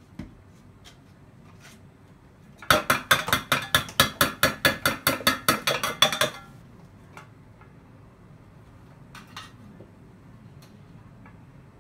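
A metal spoon clanging quickly and evenly against a stainless steel pot, about five ringing strikes a second for three and a half seconds, with a few light clinks of utensils before and after.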